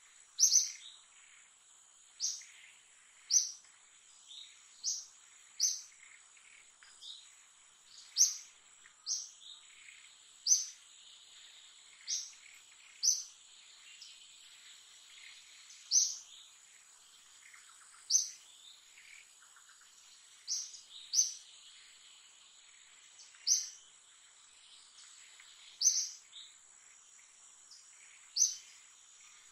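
A bird calling in short, high chirps, repeated irregularly about once a second, over a steady high-pitched insect drone.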